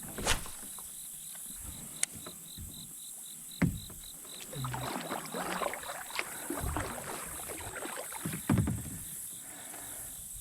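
Sounds of fishing from a kayak: a few sharp knocks on the hull, the loudest near the end, and a stretch of water swishing around the middle, over a steady high insect buzz.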